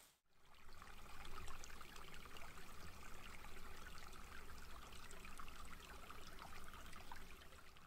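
Small shallow brook trickling over stones, faint and steady.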